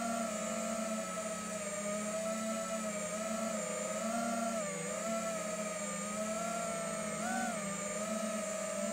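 A 6S FPV quadcopter's motors and propellers whine steadily as it flies slowly at low height. The pitch wavers gently with throttle and rises briefly about seven seconds in.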